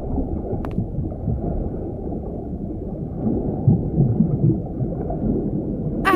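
Muffled underwater ambience: a dull, low rumble with bubbling that swells a little past the middle. A single camera-shutter click comes less than a second in.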